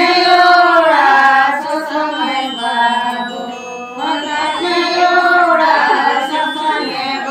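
A group of Ho women singing a wedding song together, unaccompanied. It comes in two long held phrases, with a dip between them about three seconds in.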